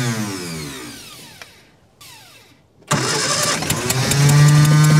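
1954 Austin A30's 803 cc A-series four-cylinder engine, unstarted for 52 years, being started: it fires, runs down and dies away, then about three seconds in catches again with a few pops and runs at a steady speed to the end. It is the engine's first brief run after being freed from seizure.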